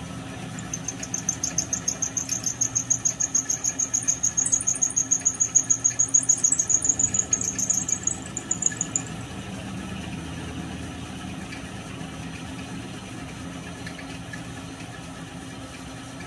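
End mill on a small milling machine squealing as it cuts an aluminum crankcase half: a high, pulsing squeal several times a second that stops about nine seconds in, over the steady hum of the mill running.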